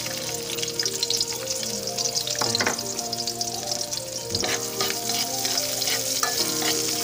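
Chopped onions sizzling and crackling as they fry in a little hot oil in a wok.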